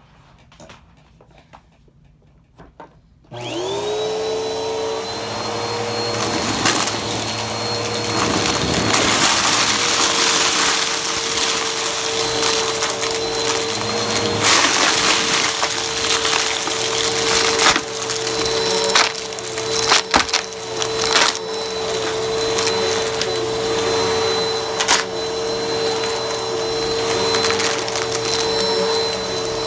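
A vacuum cleaner switched on about three seconds in, its motor spinning up to a steady whine and then running continuously, with frequent sharp clicks and crackles over it.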